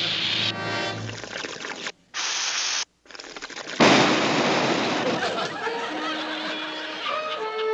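Cartoon sound effects for a clogged shower head: short hissing blasts of air, then about four seconds in a sudden loud burst of water spraying out that dies away. A few held tones follow near the end.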